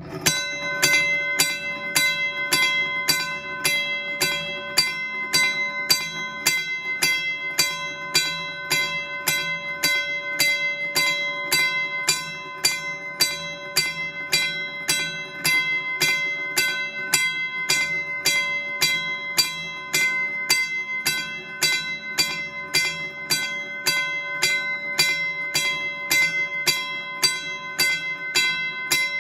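1950s Western Railroad Supply Company motorized mechanical railroad crossing bell, running on 115 V AC, its hammer striking the gong in a steady, slow-paced clang at about three strikes every two seconds. The sharp tone rings on between strikes.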